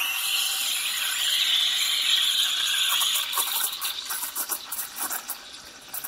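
Steam wand of a Profitec Pro 400 heat-exchanger espresso machine opened with a sudden loud hiss, steaming milk in a stainless jug. About halfway through the hiss drops and turns crackly and uneven.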